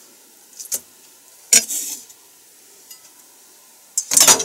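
Kitchen knife scraping and knocking on a plastic cutting board as cut raw chicken is gathered up: a few short scrapes, with a louder cluster of scrapes and knocks near the end.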